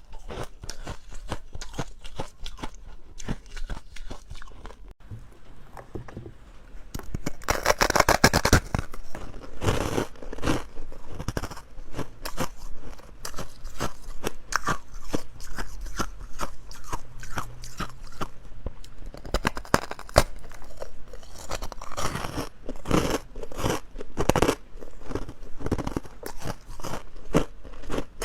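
Ice being bitten and chewed close to the microphone: crisp crunches and cracks, sparser at first, with a loud hard bite about eight seconds in and steady crunching after.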